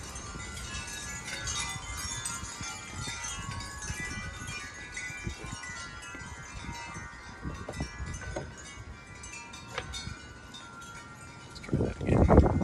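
Wind chimes ringing, many overlapping tones shimmering and fading as they are stirred by the wind. Near the end a much louder rumbling rush starts.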